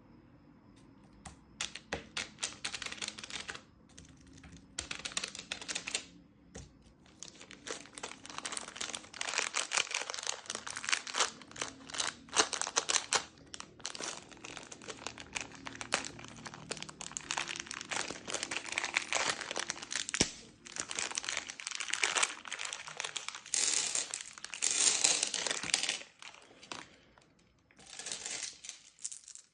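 Plastic candy wrappers crinkling and rustling as they are handled and opened by hand, in bursts with short pauses between them.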